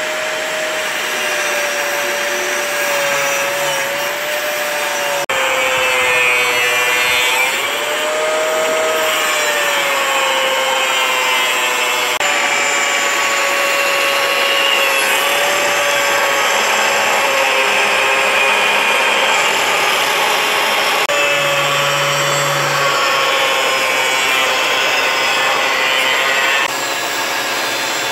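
Angle grinder with a cut-off disc cutting through an old steel circular saw blade: a loud, continuous motor whine that wavers slightly in pitch over the hiss of the disc grinding metal. The sound jumps abruptly a few times where takes are spliced together.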